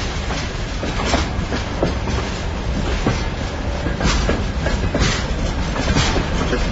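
Freight train pulling away slowly: a steady low rumble with the wheels clacking over rail joints about once a second, growing slightly louder.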